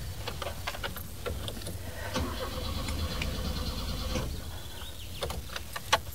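Car engine being cranked by its starter motor for about two seconds without catching, with sharp clicks and knocks before and after: the car won't start.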